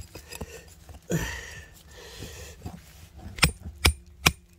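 Hammer blows breaking stone: three sharp strikes about half a second apart near the end, after a brief rush of noise about a second in.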